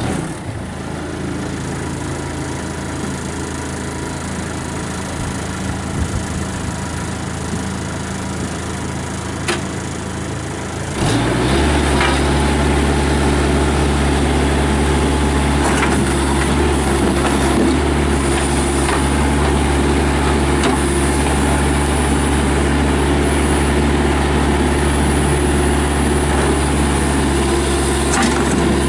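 Bobcat B300 backhoe loader's Kubota diesel engine running steadily. About eleven seconds in it gets clearly louder and holds there, with a few light knocks and clicks from the machine.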